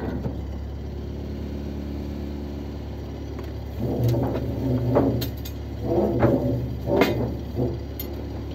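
A steel motorboat's engine runs steadily at low revs. About four seconds in, several short, uneven bursts of throttle swell over it for a few seconds, then it settles back to the steady drone.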